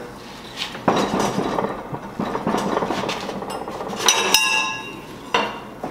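Long flat metal bar being run through a hand-operated ring roller and bent into an arc: a continuous scraping rumble of the bar passing between the rollers with small metal clinks. About four seconds in the bar clanks and rings briefly, and there is another clink near the end.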